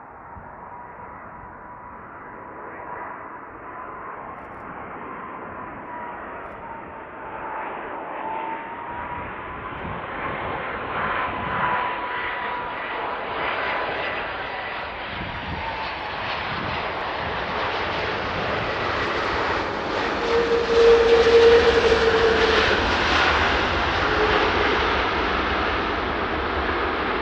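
Large jet airliner coming in to land, its engines' steady whine over a rushing noise growing louder as it approaches and passes close. It is loudest about three quarters of the way through.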